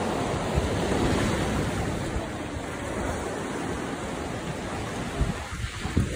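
Sea surf breaking and washing over a rocky shore in rough water, a steady rushing noise, with wind buffeting the microphone in low gusts.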